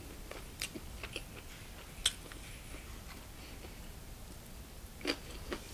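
Quiet eating sounds at the table: a few sharp light clicks and taps as metal chopsticks pick food from plastic takeout containers, the loudest about two seconds in, with soft chewing.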